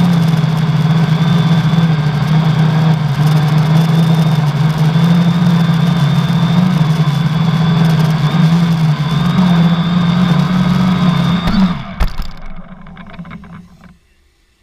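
Drone's 1000 kV brushless outrunner motors and 10x4.5 propellers running steadily, heard from the GoPro on the frame: a steady hum with a high whine over it, which the uploader says carries the noise of a bad motor bearing. About twelve seconds in the motors cut off with a short knock, and the sound fades out over the next two seconds.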